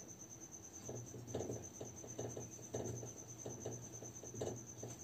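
Marker squeaking and scratching on a whiteboard in a quick run of short, uneven strokes as a word is written.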